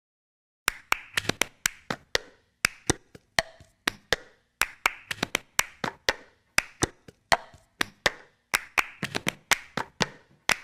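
Plastic cups tapped, rapped and set down on pavement, mixed with hand claps: the cup-game rhythm. It starts just under a second in, and its pattern of sharp taps and claps repeats every two seconds or so.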